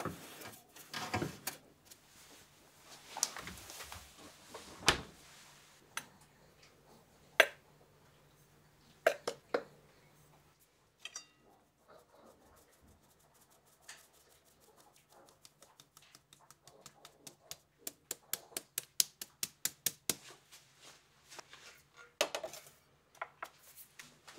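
Kitchen handling sounds: knocks and clatter as a silicone mold is set into a freezer, then flour sifted through a fine metal mesh sieve into a glass bowl. The sieve gives a quick, even run of light taps for several seconds, followed by a few louder knocks near the end.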